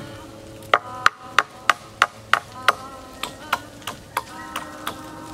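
Hammer striking the nails in an old wooden 2x4, sharp knocks about three a second, over quiet background music.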